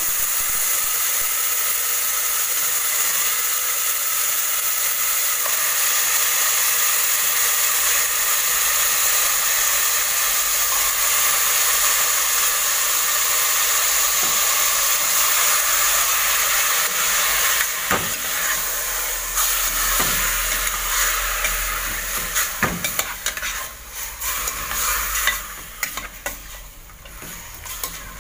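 Beef pieces sizzling in hot oil in an aluminium pressure-cooker pot while a metal spoon stirs them, scraping and knocking against the pot a few times. The sizzle dies down over the last few seconds, leaving mostly spoon clicks.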